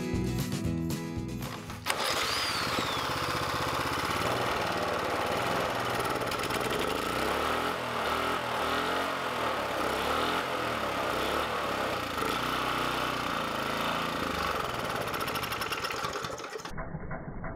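Music for about the first two seconds, then a small gasoline engine running steadily on brake parts cleaner. The engine sound turns duller near the end.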